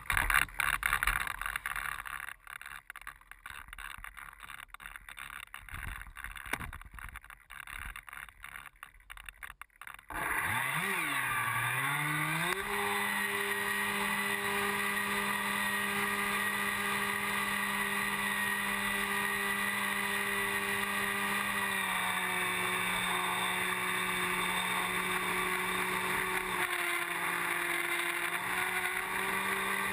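Gusty wind buffeting the wing-mounted camera's microphone, choppy and uneven. About ten seconds in, the plane's brushless electric motor (Exceed RC Rocket 3015-1200kv spinning a 9x4.5 APC propeller) spools up with a whine that rises, dips and rises again, then runs as a steady drone whose pitch drops slightly a little past twenty seconds.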